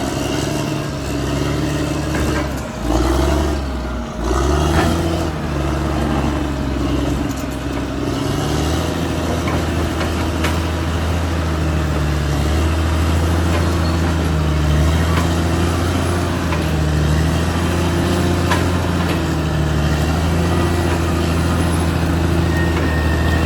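Caterpillar D6R XL bulldozer's diesel engine running under work, its pitch dipping briefly about three seconds in and picking back up, then holding steady.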